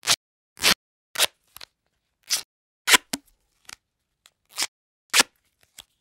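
Duct tape pulled in a string of short, sharp rips at uneven spacing, some loud and some faint.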